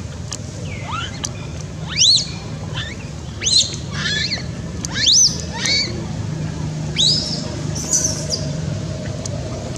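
Newborn baby macaque crying: a string of short, high-pitched cries that rise and then fall, about one a second.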